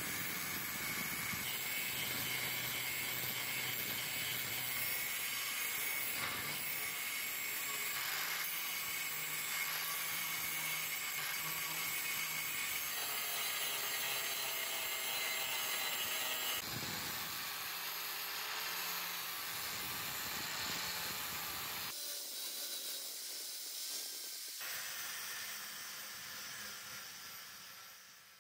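Electric angle grinder grinding the edge of a steel blank: a steady whine over a hiss of sparks. It fades out near the end.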